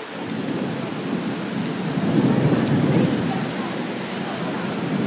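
Muddy floodwater from an overflowing torrent rushing down a street in a steady low roar, mixed with rain. It swells to its loudest about two to three seconds in.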